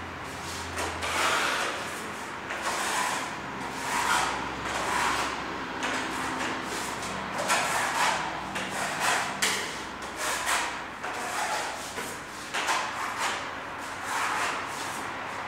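A metal spatula scraping wall filler across a plastered wall and off a hand-held plate, in short scraping strokes at an uneven pace of about one a second.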